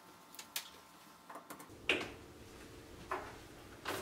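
A few light, scattered clicks and knocks from handling a small plastic mesh Wi‑Fi router and its plug-in power adapter, the loudest about two seconds in.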